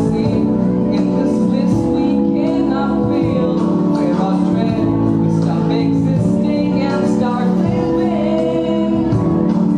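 Live vocal group singing in harmony into stage microphones, male voices with a female voice, holding long chords.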